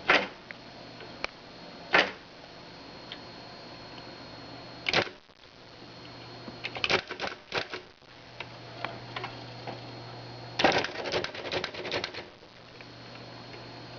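Smith Corona Ultrasonic 350 Messenger electronic typewriter printing: single sharp strikes at first, then a short cluster, then a fast run of strikes a little past the middle. A steady motor hum with a thin high whine runs between them.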